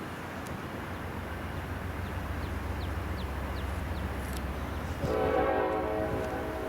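A GE C44-9W diesel locomotive's 16-cylinder engine rumbling and growing louder as it comes on. About five seconds in, its Nathan K5LLA five-chime air horn sounds one short blast.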